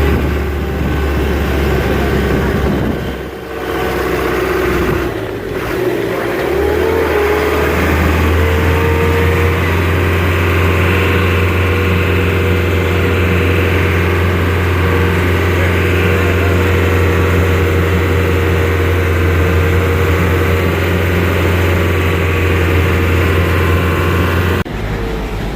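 Zip line trolley running along the steel cable: a loud, steady hum and whir, briefly dipping a few seconds in.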